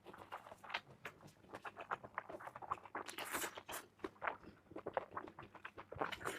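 Close-miked chewing and biting of food: wet smacking mouth sounds and small crunching clicks, with a louder burst of crunching about three seconds in.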